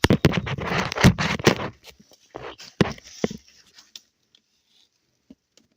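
Loud scratching, scraping and clicking handling noise as the recording phone or camera is moved and set in a new position; it dies away after about three and a half seconds.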